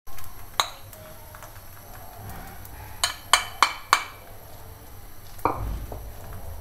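Metal spoon clinking and scraping against a ceramic bowl and plate while noodles are scraped out and spread: a single clink early, a quick run of four clinks about three seconds in, and a duller knock near the end.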